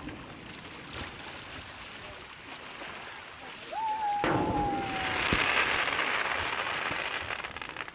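Fireworks bursting over a lake: a few sharp booms, a thin whistle that falls slightly in pitch for a second or two, then a loud dense crackle lasting about three seconds.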